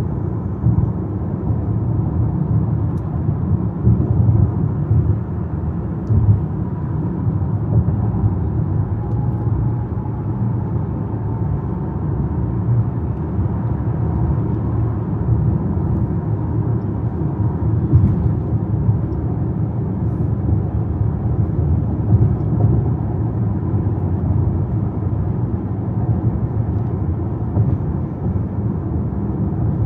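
Steady road noise from a car driving: a low, even rumble of tyres and engine with no distinct events.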